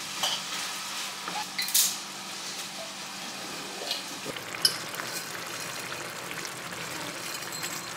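Ground-meat tomato sauce sizzling in a stainless steel frying pan while it is stirred with a wooden spoon, with a couple of sharp clinks of utensils against the pans, about two and about four and a half seconds in.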